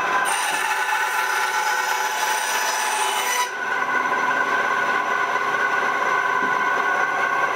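Ryobi 9-inch band saw running with a steady whine; from just after the start its blade cuts through a piece of wood with a loud hiss for about three seconds, which stops suddenly as the cut finishes, leaving the saw running free.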